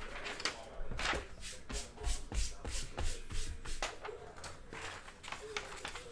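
A sheet of printer paper rustling as it is picked up and handled, a quick irregular run of crinkles and rubs.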